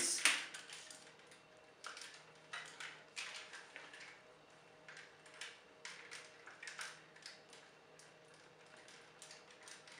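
Hard plastic Transformers toy parts clicking and knocking as the figure is handled and transformed: one sharp snap about a quarter second in as a part locks into place, then scattered lighter clicks.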